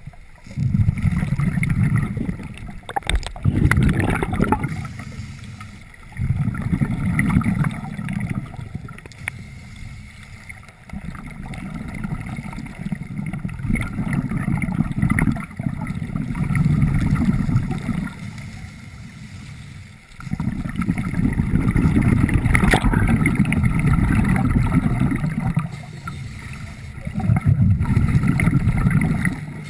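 Scuba diver breathing through a regulator underwater: low bubbling bursts of exhaled air, each a few seconds long, about seven in all, with short quieter pauses between breaths.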